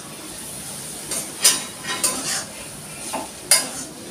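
Metal spatula scraping and clanking against a metal kadai (wok) as chow mein noodles are stir-fried, in irregular strokes with two louder clanks, over a steady faint sizzle from the pan.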